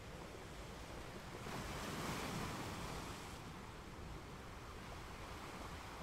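Calm ocean waves washing in: a steady low wash, with one wave breaking and rushing in about a second and a half in, then fading away again after about three seconds.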